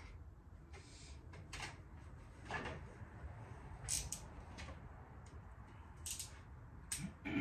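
A few scattered short knocks and rustles of handling over a low steady hum, in a small room.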